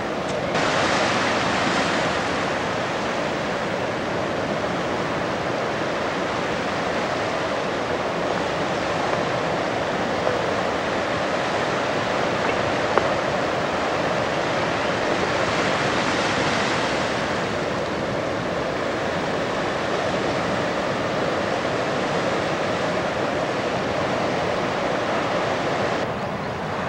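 Ocean surf breaking, a steady rushing wash that swells louder soon after the start and again about halfway through.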